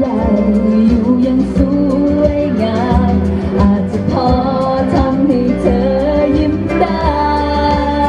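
A woman singing a Thai pop ballad live into a handheld microphone over backing music. She holds long notes with vibrato.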